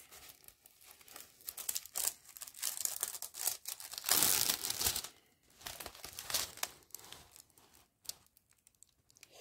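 Diamond painting canvas and its clear plastic protective film being handled and turned over: irregular crinkling and rustling, loudest about four seconds in, thinning to a few faint ticks near the end.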